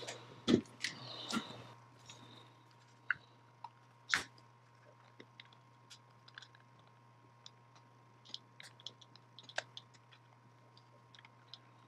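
Small clicks and taps of a laptop battery being pressed into place by hand and its connector pushed onto the board, with a couple of louder knocks about half a second in and about 4 seconds in. A faint steady hum runs underneath.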